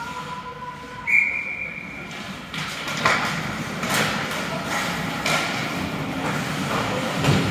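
Referee's whistle blown once about a second in, a single steady high tone that fades away over a second or so, followed by several sharp knocks and clacks.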